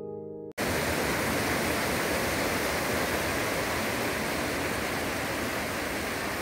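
Steady rush of sea surf breaking on a beach. It cuts in abruptly about half a second in, after a short tail of piano music.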